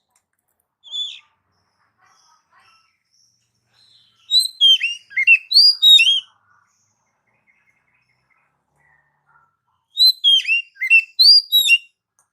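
Oriental magpie-robin (kacer) singing: a single short note about a second in, then two phrases of rapid, downward-sliding whistles, each about two seconds long.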